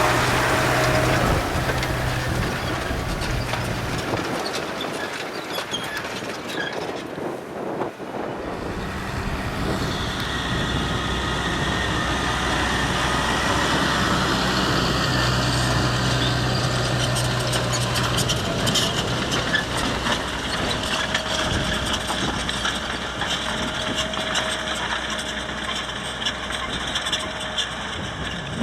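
Massey Ferguson 7616 tractor's diesel engine running steadily as it pulls a plough. The low engine hum drops away for a few seconds about five seconds in, then comes back.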